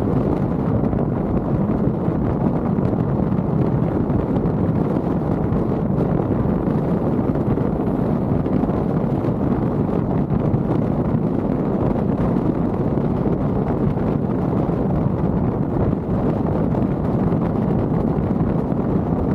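Steady wind and road noise of a moving car, an even rumble with no engine note or other distinct sounds standing out.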